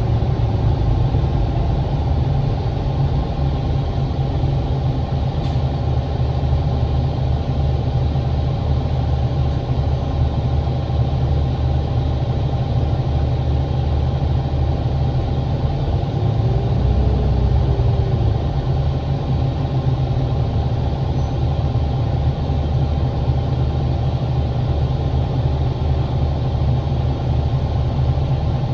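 2007 New Flyer D40LFR transit bus heard from inside the cabin, its Cummins ISL diesel engine running with a steady deep drone in slow traffic. A brief rising-then-falling whine comes about two-thirds of the way through.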